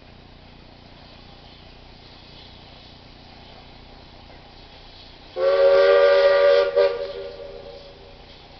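Five-chime Nathan chime whistle on a BR Standard 4MT 2-6-0 steam locomotive, sounded once about five seconds in. It plays a chord of several tones, held for about a second and a half, broken briefly, then tailing away.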